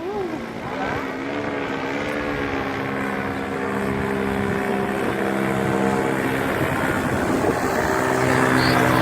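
Powered paraglider (paramotor) engine and propeller running steadily overhead, growing gradually louder as it approaches.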